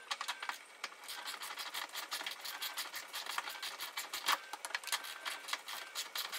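Socket ratchet clicking in rapid, even strokes as a 10 mm bolt is run in.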